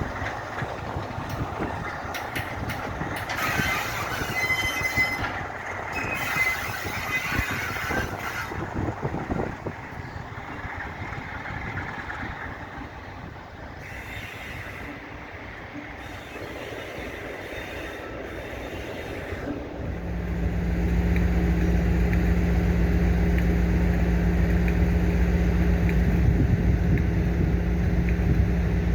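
Class 47 diesel locomotives shunting: wheels squeal on the rails for the first several seconds, then it goes quieter. About two-thirds of the way in, a steady low drone of a Sulzer 12LDA28 V12 diesel engine comes up close and louder.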